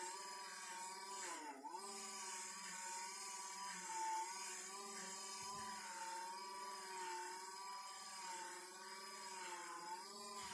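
Electric motor of a bench-mounted fibre polishing wheel running steadily, with a slightly wavering hum. Its pitch sags briefly about a second and a half in, as if a spanner were pressed against the wheel.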